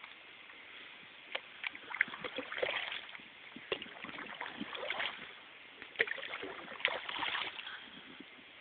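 Canoe paddle strokes: water splashing and dripping off the paddle every couple of seconds, with a few sharp knocks in between.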